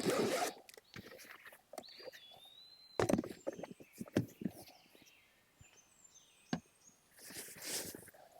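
Irregular clicks, knocks and rustling, like footsteps and gear being handled at a campsite, with louder bursts at the start, about three seconds in and near the end. A short high chirp sounds about two seconds in.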